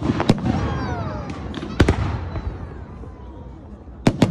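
Aerial fireworks shells bursting with sharp bangs: one just after the start, a close pair near the middle and another close pair near the end, with smaller pops in between.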